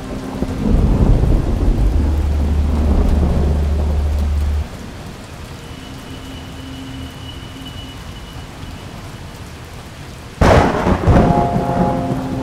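Rain and rolling thunder, with a deep steady drone under it that cuts off suddenly about four and a half seconds in. About ten seconds in a sudden, loud thunderclap breaks, and a few held tones come in after it.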